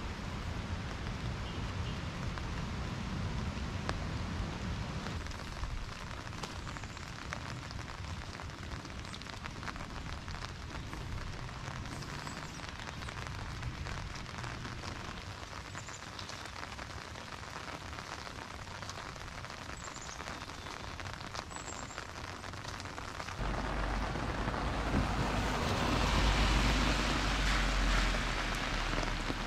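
Steady rain falling on wet pavement, with the fine patter of drops. From about 23 seconds in a car passes on the wet road, its tyres hissing and engine rumbling, loudest just before the end.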